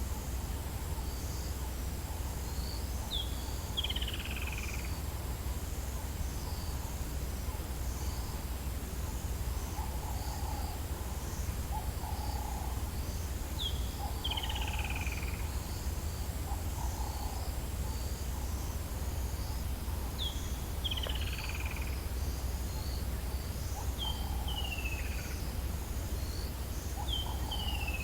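Dawn chorus in the African bush: a bird repeats a clear call five times, a short high note and then a longer note sliding down, a few seconds apart. Lower calls repeat around it over a layer of faint high chirping and a steady low rumble.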